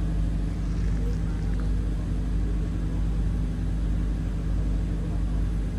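A ship's onboard engine running steadily, a constant low drone that holds the same level throughout.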